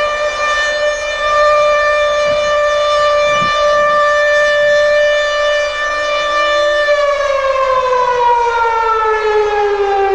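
Civil-defense-style siren wailing on one steady pitch, then falling in pitch from about seven seconds in.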